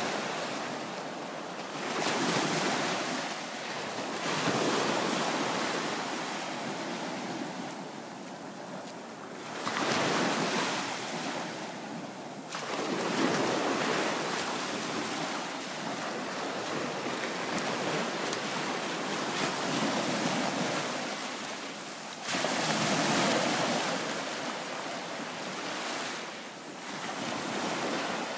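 Small waves breaking and washing up a sandy bay beach at the water's edge. The wash swells and eases every few seconds.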